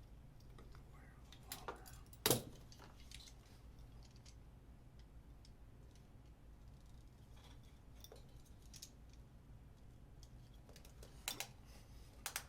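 Scattered sharp clicks and light knocks from handling wire, connectors and small hand tools: one louder click about two seconds in and a few more near the end.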